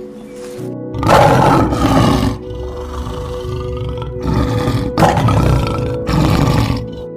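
Lion roaring: a long rough roar, then several shorter ones, over background music.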